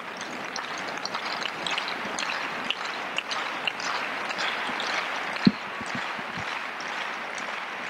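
Tennis crowd noise with scattered clapping. About five and a half seconds in, a tennis ball is bounced several times on the clay court before a serve, the first bounce the loudest.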